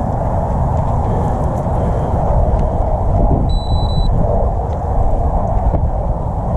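Loud, steady low rumbling noise on the camera microphone, with a brief high beep about three and a half seconds in.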